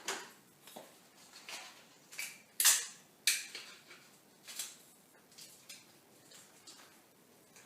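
A scatter of light, irregular clicks and knocks as small hard objects are handled, with the two loudest about two and a half and three and a quarter seconds in.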